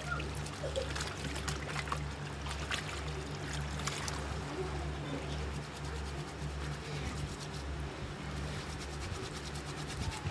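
Batik fabric being hand-scrubbed and swished in a plastic tub of water, with irregular splashing and trickling, to wash out the last wax residue after boiling. A steady low hum runs underneath.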